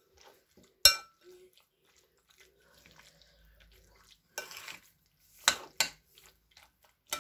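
Metal fork clinking and scraping against a white oven dish while stirring sauced pasta. A few sharp ringing clinks, the loudest about a second in and more near the end, with a short scrape about four and a half seconds in.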